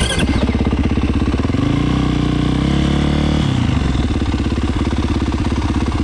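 450 motocross bike's four-stroke engine running close by. It cuts in suddenly, climbs in revs from about a second and a half in, drops back about halfway through, then keeps running steadily.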